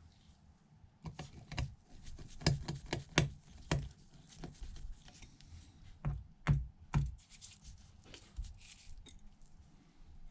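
Light clicks and taps of small precision tools (screwdriver, tweezers) against the iPhone's housing and screws as the logic board is screwed in, in irregular bursts with a few sharper knocks.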